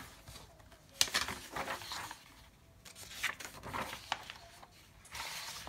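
Paper rustling and page handling as a notebook is opened and pressed flat, with a sharp tap about a second in.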